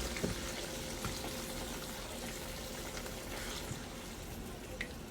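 Mushroom and onion gravy of beef broth and heavy cream simmering in a cast-iron skillet with a faint, steady sizzle, with a few light clicks.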